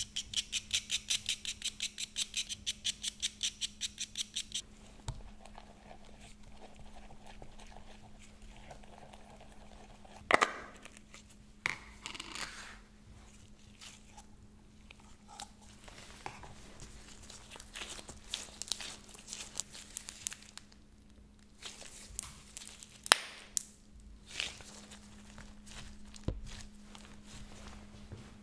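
Soft pastel stick scraped quickly with a tool, shaving coloured powder into a bowl: an even run of about six scrapes a second for the first four and a half seconds. After that, clear slime is pulled from a plastic cup and worked, with soft sticky crackling and a few sharp taps.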